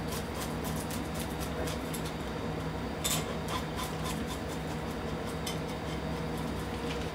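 Kitchen knife tip scraping scales off a horse mackerel from tail to head, in a quick run of short, raspy strokes with one louder scrape about three seconds in.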